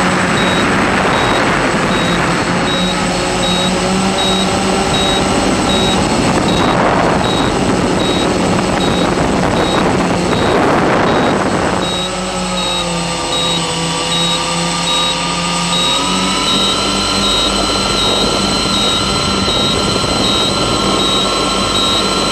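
Octocopter's electric motors and propellers whirring steadily in flight, heard through the onboard microphone, with a few rushes of wind noise in the first half. The pitch dips about twelve seconds in and rises again about four seconds later.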